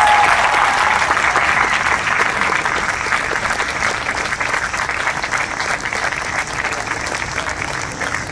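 Audience applauding an award presentation, a dense, steady clapping that eases off gradually.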